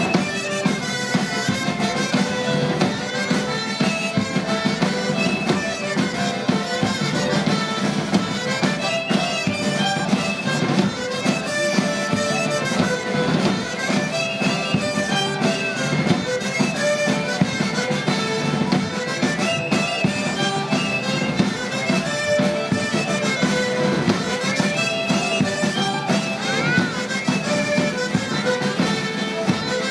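Traditional Basque instrumental dance music, with wind instruments over a steady low drone.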